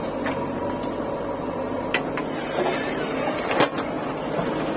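JCB 3DX backhoe loader's diesel engine running steadily with a whine, with a few sharp clanks and knocks from the working bucket and arm; the loudest knock comes about three and a half seconds in.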